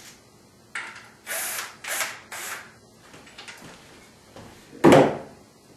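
A few short scraping rustles of wood being handled, then one loud wooden knock as a loveseat back slat is laid against the frame.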